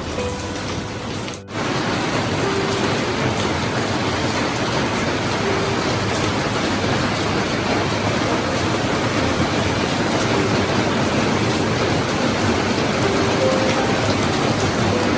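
Steady rain falling, an even hiss of drops. About a second and a half in it drops out briefly, then comes back slightly louder.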